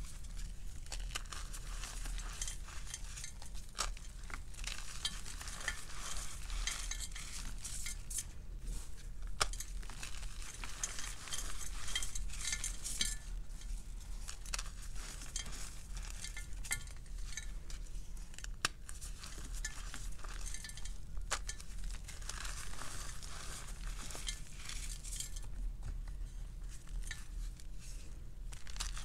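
Hands crushing and crumbling pressed gym chalk shots with crunchy cornstarch centres: a continuous gritty, crunchy crumbling of chalk, broken now and then by sharp snaps as pieces break apart, over a steady low hum.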